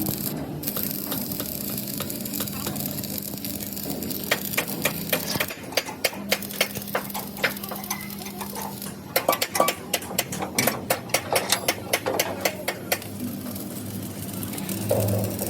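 Metalwork on a truck chassis frame: a steady machine hum with crackling, and sharp metallic clicks and taps that come thick and fast in the second half.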